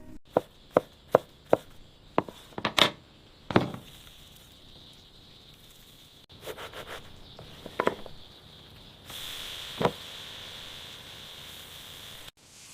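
A run of sharp knocks, about two a second, over the first few seconds, then a few fainter scrapes and a steady hiss near the end.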